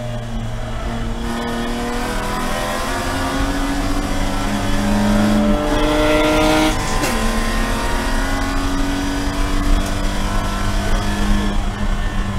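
BMW E46 race car's inline-six engine accelerating hard, heard from inside the stripped cockpit. Its pitch climbs steadily, drops briefly with an upshift about seven seconds in, then climbs again as the car gathers speed.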